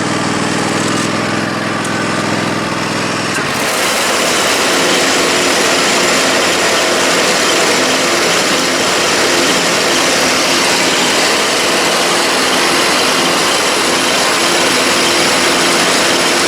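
Husqvarna Z254 zero-turn mower running steadily after a new idler pulley has gone in. About three and a half seconds in, the sound turns louder and fuller, with more hiss on top, and stays that way. The repair sounds pretty good.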